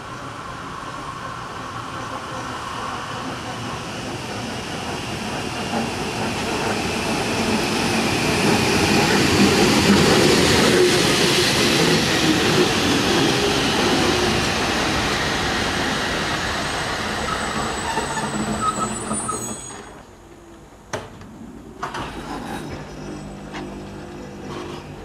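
Mariazellerbahn narrow-gauge train running on the rails. The noise swells to a peak about ten seconds in and then eases, with a brief high wheel squeal shortly before it drops away suddenly. A few sharp knocks follow over a quieter background.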